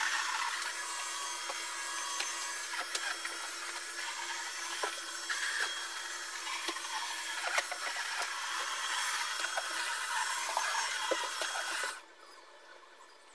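Vacuum cleaner running steadily, with scattered sharp clicks and ticks of debris being picked up. It cuts off suddenly about a second before the end.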